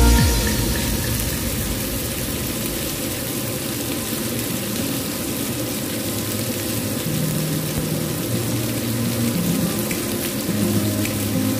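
Beef burger patties sizzling steadily in a cast-iron grill pan, nearly cooked through.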